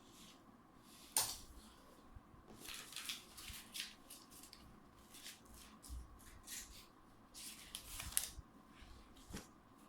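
Soft scattered rustling and handling noises with a few sharp clicks, the sharpest about a second in and again about eight seconds in.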